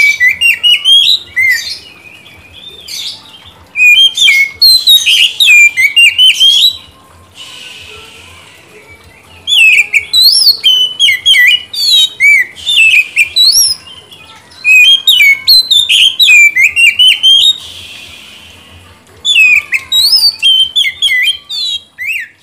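Oriental magpie-robin (kacer) singing: loud phrases of rapid, varied whistles and chirps, each a few seconds long, with short pauses between them.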